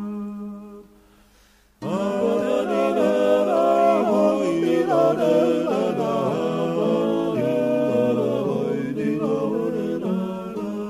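Gurian (Georgian) folk song sung a cappella by several voices in parts. A held chord dies away into a short gap, then the voices come back in together about two seconds in with separate moving lines, and settle onto a held low note near the end.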